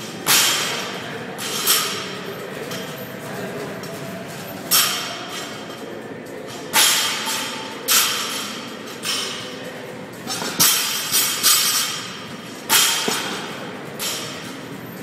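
Loaded barbell with bumper plates dropped repeatedly on the gym floor: sharp bangs every second or two that echo in the large room, once bouncing three times in quick succession.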